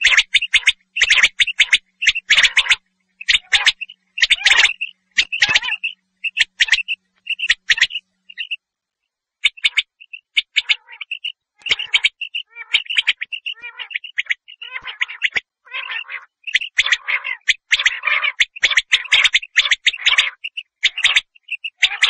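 Common quail calling over and over in fast bursts of short, sharp notes. There is a pause of about a second a little over a third of the way in.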